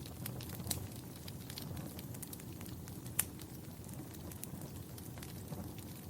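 Wood fire crackling, with scattered sharp pops over a steady low rumble of the flames; one louder pop about halfway through.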